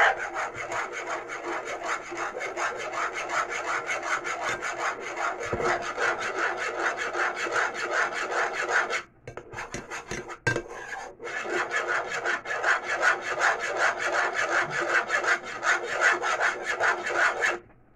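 A spoon stirring and scraping a thickening cornstarch and powdered-milk paste in a cooking pot, in fast, even strokes. The stirring breaks off briefly near the middle and stops shortly before the end.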